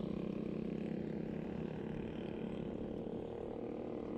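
Motor scooter engine running steadily at cruising speed, with a rumble of wind and road noise.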